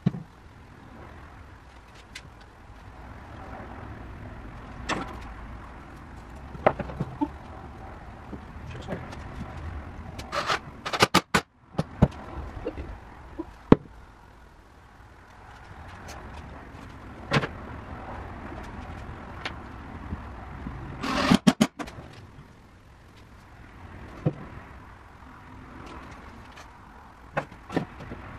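Wooden pieces and tools being handled on a plywood workbench: scattered knocks and clicks over a low steady hum, with two short clusters of clatter, one about eleven seconds in and one about twenty-one seconds in.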